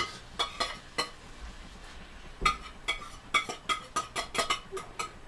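A metal utensil clinking and knocking against a pan while the food is stirred, with a few separate clinks and then a quick run of ringing taps through the second half.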